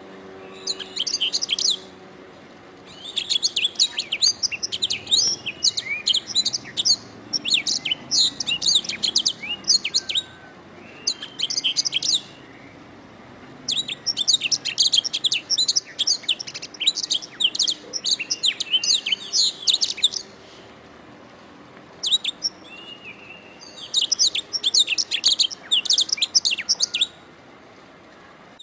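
Domestic canary singing: fast, high-pitched trilling and chirping song phrases a few seconds long, broken by short pauses.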